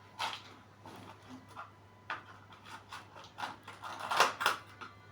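Irregular light clicks and knocks of small hard parts and tools being handled on a workbench, the loudest few a little over four seconds in.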